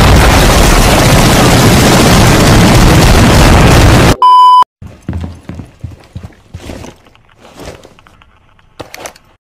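Extremely loud, distorted noise for about four seconds, cut off by a short beep like a censor bleep, then a few faint knocks and clicks.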